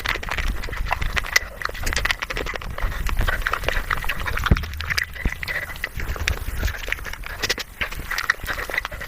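Mukbang eating sounds played back about five times too fast: a rapid, dense run of chewing, crunching and wet mouth clicks, with squeaky, high sped-up mouth and breath noises.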